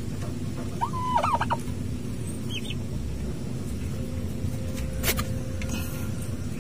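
Domestic turkey calling once about a second in, a held note that breaks into a few quick warbles. A faint short high peep follows, and a sharp click comes later, over a steady low hum.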